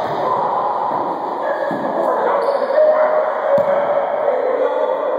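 Several players' voices overlapping and echoing off the walls of an enclosed racquetball court, with a single thump about three and a half seconds in.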